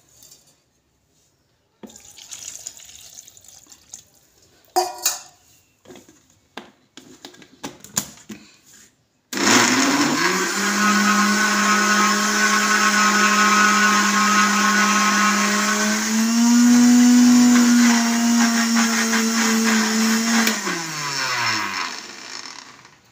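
Electric blender churning thick cream for homemade butter. First some knocks and clatter as the jar and lid are handled; about nine seconds in the motor starts suddenly and runs with a steady whine that rises slightly in pitch partway through, then switches off and winds down with a falling pitch.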